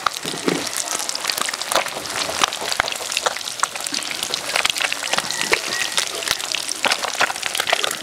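Small whole fish frying in hot oil in a black karahi, a steady sizzle full of spitting crackles, with a metal spatula scraping in the pan as the fish are turned and lifted out.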